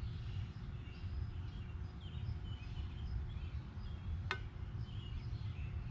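A spoon stirring a pot of soup outdoors, with one sharp metallic click against the pot about four seconds in. Under it runs a steady low rumble with scattered high chirps.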